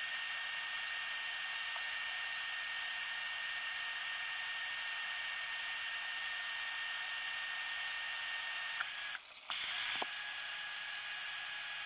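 Chicago Electric battery load tester under load on a Camry hybrid battery module during a 20-second load test: a steady high whine over a hiss. It drops out briefly near nine seconds, a click follows, and it runs on.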